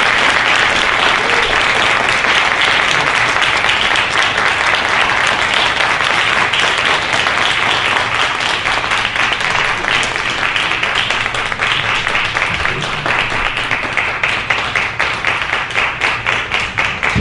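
Audience applauding, a dense continuous ovation that thins into more separate claps over the last few seconds.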